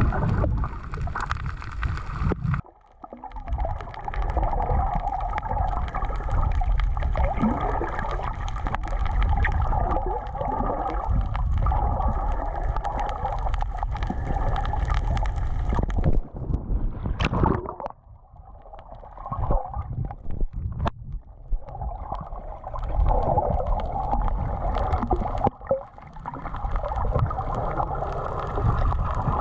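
Gurgling, rushing water with a steady drone, dropping out briefly a few times.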